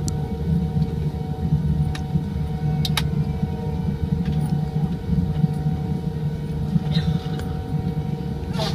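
Steady cabin noise inside a Boeing 787-9 airliner: a low engine and airflow rumble with a steady hum running through it. A few sharp clicks come about two and three seconds in, and another near the end.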